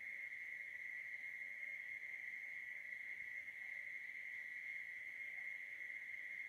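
Faint, steady high-pitched insect trill, like a cricket, running on without a break.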